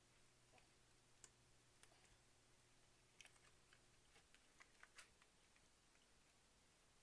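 Near silence with a scatter of faint clicks and taps as hands handle the opened Akai MPC 1000's chassis and small tools.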